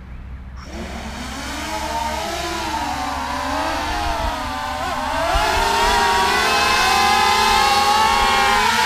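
The eight brushless motors and ducted propellers of a coaxial X8 octocopter (T-Motor 2206 2000Kv) spooling up about half a second in and whining into a climb, lifting a payload hanging on a line. Several whining tones waver up and down as the motors adjust, and the sound grows louder about five seconds in as it climbs.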